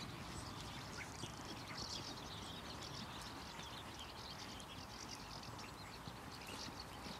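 Faint outdoor ambience: small birds chirping on and off over a low, steady rumble.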